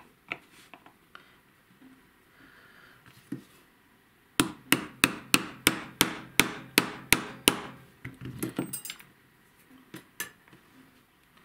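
Small ball-peen hammer tapping a steel punch to start a tight roll pin into an AR-15 gas block: about a dozen quick, sharp metal taps in steady rhythm over some three seconds in the middle, with a few light clicks of handling before and after.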